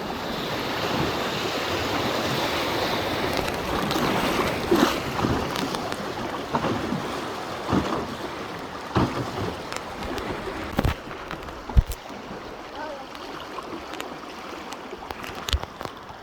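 Rushing water of river rapids, louder for the first ten seconds and quieter after, with a few sharp knocks in the second half.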